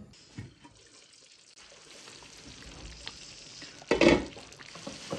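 A pot of thick haleem, nearly done, cooking on the stove with a fine sizzling hiss and stirring. There is one louder clatter of the spoon against the pot about four seconds in.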